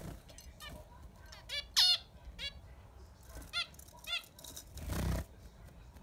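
Zebra finches giving several short calls in the first four seconds, the loudest near two seconds in. About five seconds in comes a brief whoosh of flapping wings.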